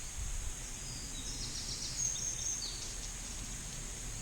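Woodland ambience: a small bird chirping a quick run of short high notes from about half a second to nearly three seconds in, over a steady high hiss and a low rumble.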